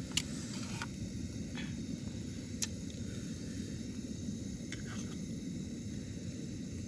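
Portable gas camping stove burning steadily under a metal kettle, a low even rush, with a few light metallic clicks and taps as the kettle and its lid are handled, the sharpest about a quarter second and two and a half seconds in.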